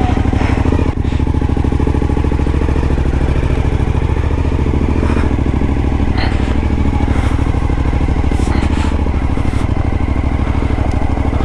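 Suzuki V-Strom motorcycle engine running steadily at low revs as the bike rolls slowly over gravel, its even firing pulse close to the microphone, with a few light knocks on top.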